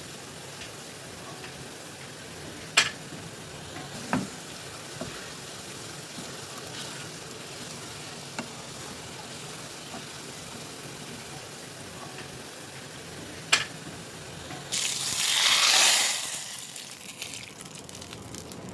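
Food sizzling steadily in a cooking pan during dal cooking, with a few sharp clinks of a utensil against the pot. About fifteen seconds in, a louder hiss swells for about two seconds, then dies away.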